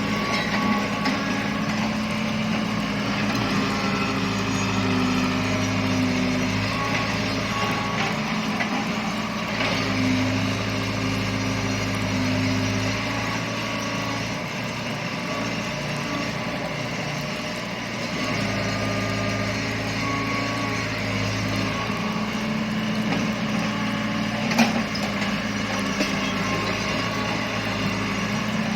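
Excavator's diesel engine running steadily, its low drone growing stronger in several stretches as the machine works. A single sharp knock comes near the end.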